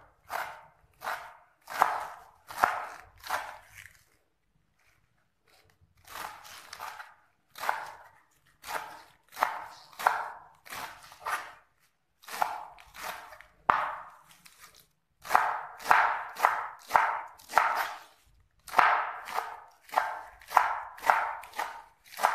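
Sharp kitchen knife chopping a bunched handful of fresh spinach against a wooden cutting board, one stroke at a time at about one to two strokes a second, with a break of about two seconds near the start.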